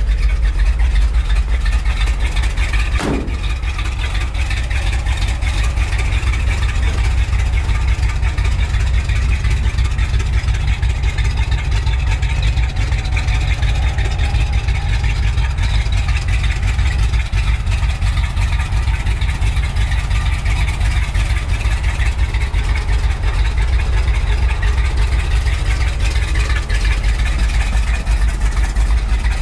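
Big-block V8 engine of a 1947 Ford F1 rat rod pickup idling steadily.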